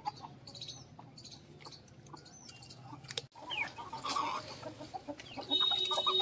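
A flock of chickens, hens and roosters, clucking while they feed. The clucking is faint at first, drops out for a moment about three seconds in, then comes back louder and busier.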